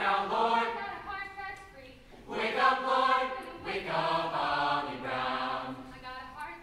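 Mixed choir singing together in two phrases, with a short break about two seconds in.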